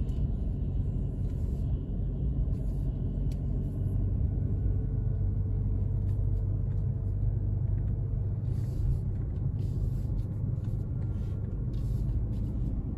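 A car moving along, with a steady low rumble of engine and road noise.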